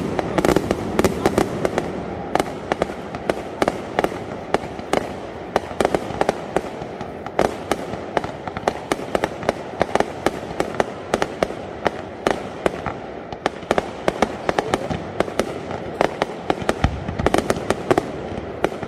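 Fireworks display: many sharp bangs of shells launching and bursting in quick, irregular succession, several a second, over a continuous crackling rumble.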